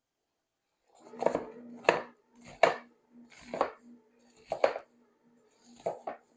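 Kitchen knife slicing an onion thin, each cut striking the board with a sharp chop, about seven chops spaced under a second apart starting about a second in. A faint steady hum runs underneath.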